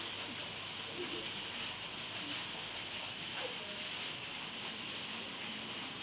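A steady hiss, with faint snatches of people talking in the background.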